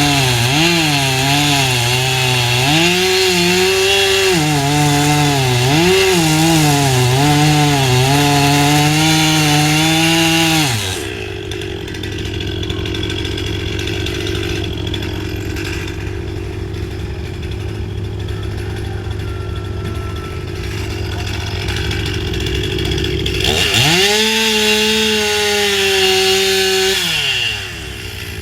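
Two-stroke chainsaw at high revs, its pitch wavering and dipping as it bogs under cutting load. About eleven seconds in it falls to a lower, steadier running sound, then revs up again about ten seconds later, with a brief dip near the end.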